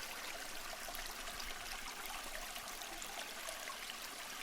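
A steady rush of running water.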